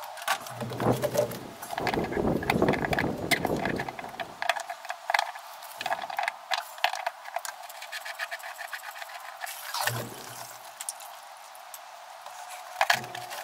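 Scattered clicks, knocks and rustling of hands and body working at a plastic pool filter, with a louder stretch of rustling in the first few seconds and a shorter one about ten seconds in.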